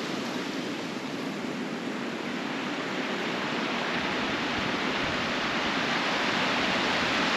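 Steady rushing of running water, a little louder in the second half.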